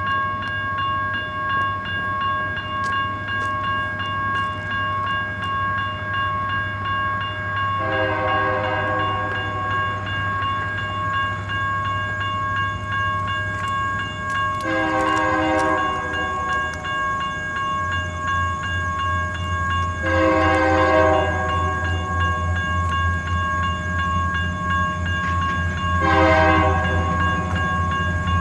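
A Union Pacific diesel locomotive sounds its air horn for a grade crossing, four blasts of about two seconds each, while a crossing bell rings steadily. The locomotive's engine rumble grows louder about two-thirds of the way in as the train draws near.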